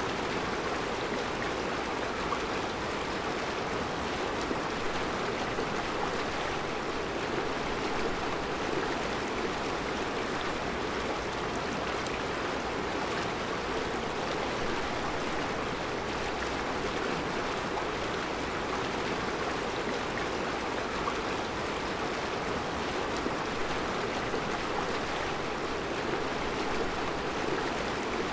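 Mountain river flowing over round rocks in a rocky bed: a steady, even rush of water.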